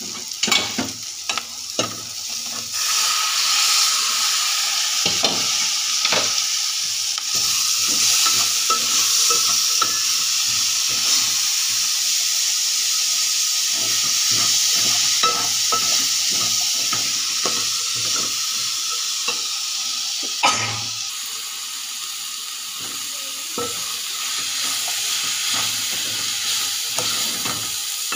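Chopped flat beans (chikkudu kaaya) and green chillies sizzling in hot oil in an aluminium pot, stirred with a wooden spatula that scrapes and taps the pot in quick irregular strokes. The sizzle swells about three seconds in, and one louder knock comes about two-thirds of the way through.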